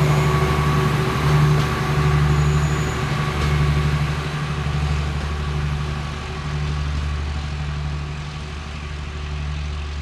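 Passenger train rolling slowly past and away, with a steady low diesel engine hum under the rumble of the coaches, slowly fading.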